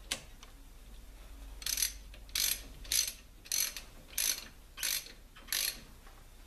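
Socket ratchet wrench clicking in seven short, evenly spaced back-strokes, a little over half a second apart, as a 12 mm socket tightens a brake caliper bolt. There is a single sharp click right at the start.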